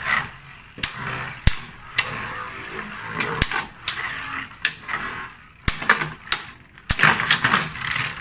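Two Takara Tomy Beyblade Burst tops, Z Achilles and Hazard Kerbeus, spinning in a plastic stadium, with a steady whirring scrape on the stadium floor. They clash in sharp clacks about every half second to a second.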